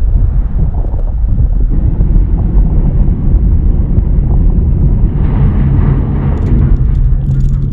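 Loud low rumbling drone on a film soundtrack, with a steady low hum joining about five seconds in. Near the end come quick metallic clicks and rattles from a door's bolt latch being shaken.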